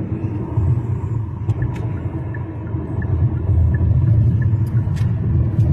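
Steady low rumble of road and engine noise inside a car's cabin while driving at freeway speed, with a few faint clicks.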